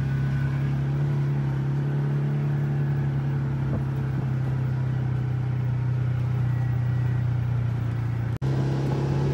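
Side-by-side UTV engine running steadily at cruising speed on a dirt forest track, a low, even drone that eases slightly lower in pitch. It cuts out for an instant near the end and comes straight back.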